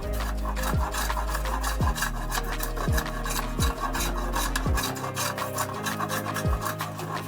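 Hand panel saw cutting through a glued-up block of oak and pallet wood, with rapid, repeated rasping strokes. Background music with a steady beat plays underneath.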